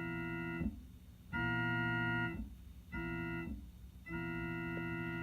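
Electronic keyboard on an organ-like voice playing a chord that imitates a Nathan P2 air horn, sounded as separate steady blasts. The first blast ends under a second in, then come a long blast, a short one and another long one: the long-long-short-long pattern of a grade-crossing signal.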